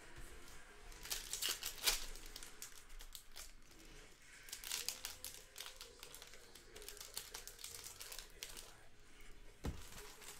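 Trading-card pack wrappers being torn open and crinkled by hand, in clusters of rustling about a second in and again around five seconds, with a single sharp knock near the end.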